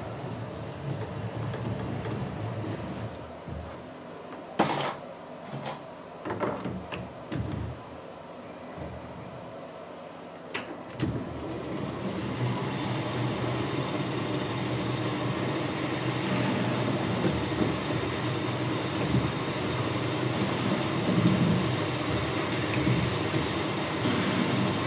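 A few sharp metal clunks and knocks as the lathe's tool post and carriage are brought up to the work. Then, about eleven seconds in, a Harrison lathe starts and runs steadily, with a thin high whine, while it faces the end of a steel bar in the chuck.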